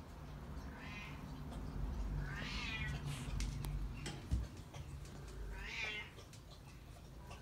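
Newborn cockapoo puppies giving thin, high, mewing cries, three in all: a faint one about a second in, then louder ones about two and a half and six seconds in. A short dull knock comes just after four seconds.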